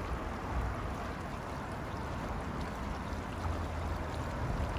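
Steady rush of water from a sewage outlet flowing into a tidal river, with a low rumble of wind on the microphone.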